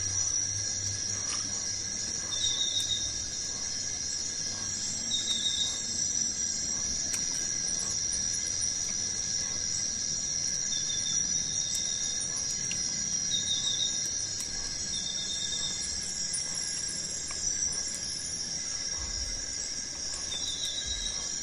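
Forest insects: a steady high buzzing chorus, with short trilled chirps repeating every few seconds.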